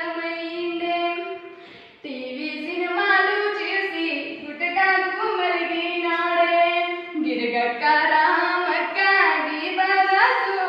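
Female voice singing a slow melody in long held notes that glide from one pitch to the next, breaking off briefly about two seconds in.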